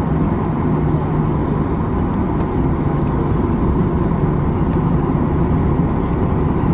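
Steady low rumble of a vehicle in motion, with a low hum held through it.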